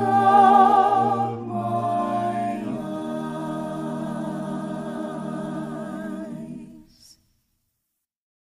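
A cappella voices singing in harmony the last words of a worship song. They move through two chord changes in the first three seconds, then hold a final chord that fades out about seven seconds in.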